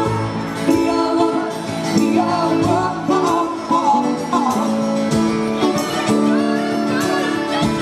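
Live acoustic guitar played fingerstyle, with a second guitar accompanying, amplified through a PA system: a busy run of plucked notes.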